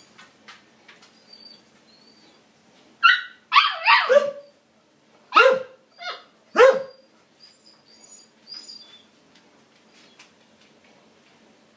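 Siberian husky puppy yapping: a quick run of high, short barks that drop in pitch about three seconds in, then two more about a second apart. Softer high squeaks come before and after.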